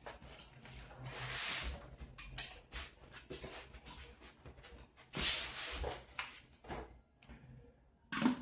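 Plastic parts of an ultrasonic humidifier being handled: irregular scrapes and clicks, with the longest scrapes about a second in and about five seconds in, and a sharp knock near the end.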